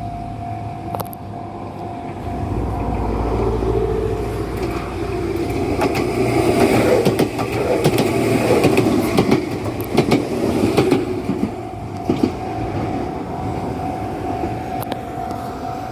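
Enoden electric train passing over a level crossing. The running noise builds over the first few seconds, is loudest in the middle with a string of sharp wheel clacks, then eases off. A steady warning tone, typical of the level-crossing alarm, is plain at the start and near the end.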